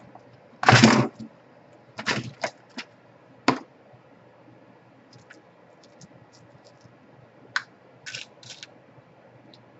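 Irregular small clicks, taps and knocks of hands working on a laptop's plastic case and screws, with a longer scraping rattle about a second in, a cluster of taps around two seconds, then fainter ticks and a few more clicks near the end.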